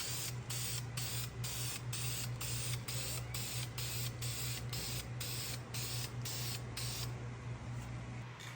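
A power tool hollowing out the clogged catalytic converter material: a steady hum overlaid by a rhythmic hissing grind, pulsing about two to three times a second, that stops about a second before the end.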